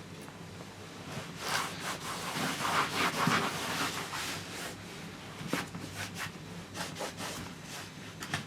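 Irregular rubbing and scraping strokes, loudest about three seconds in, with a few sharp clicks near the end, over a faint steady hum.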